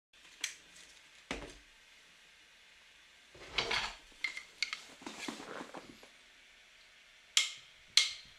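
Faint, scattered clicks and short rustles of a gold chain strung with black beads being lifted and handled, the beads clinking lightly.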